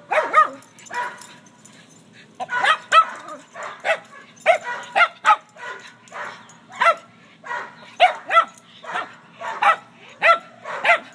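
Jack Russell terrier barking repeatedly: short, high yapping barks in quick succession, with a brief pause about a second in.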